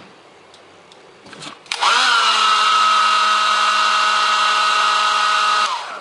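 Small hand-held hair dryer switched on. Its fan motor rises briefly in pitch as it spins up, then holds a steady whine over the rush of air, and it is switched off near the end.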